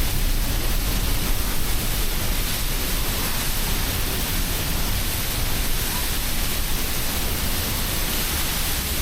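Waterfall spray and pounding water: a steady, dense rushing hiss, loud and unbroken.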